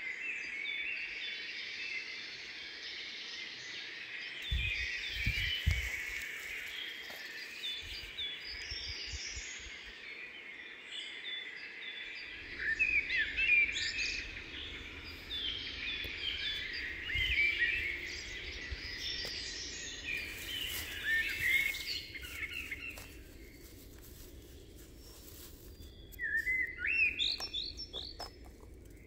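Birds singing and chirping in a dense run of short high calls that thins out about three quarters of the way through, then a short burst of chirps near the end. A low steady rumble sits underneath from about the middle on, with a few low thumps about five seconds in.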